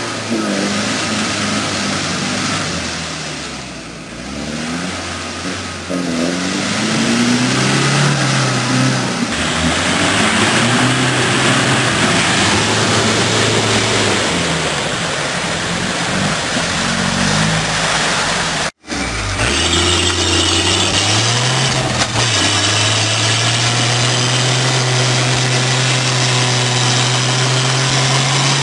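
Troller T4 4x4 engine revving up and down as it churns through deep mud. After a sudden cut, the engine of a Willys Jeep rises and then pulls at a steady high note as it climbs a muddy track.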